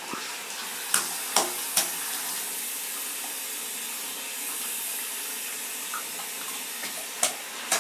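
Bathtub faucet running, a thin stream of water splashing steadily into shallow bath water, with a few short clicks about one to two seconds in and twice more near the end.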